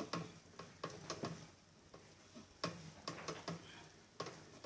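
Scattered sharp metal clicks and knocks, unevenly spaced, from a long wrench working the tight 10 mm bolt deep inside a Brastemp washing machine's agitator.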